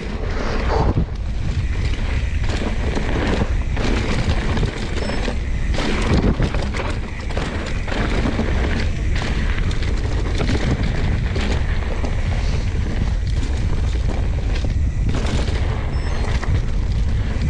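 Mountain bike descending a rough technical trail at speed: wind buffeting the microphone in a steady low rumble, with the rattle and knocks of the bike over roots and rocks.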